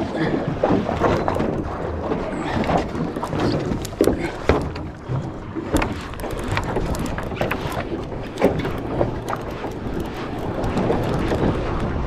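Wind and water noise on a small open fishing boat, with scattered knocks and clicks from the hull and tackle.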